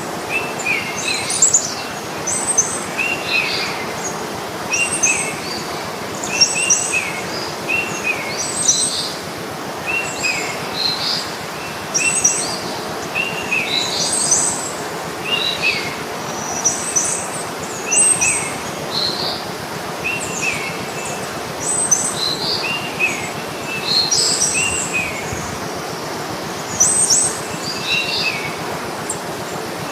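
Birds chirping in short, repeated high calls every second or two over a steady outdoor hiss.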